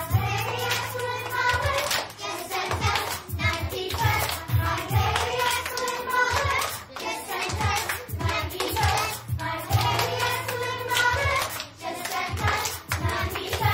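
A group of young children singing a song with instrumental accompaniment that has a steady beat.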